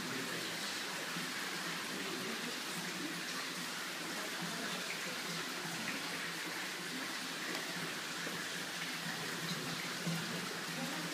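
Steady, even rushing noise like running water, with faint voices murmuring underneath.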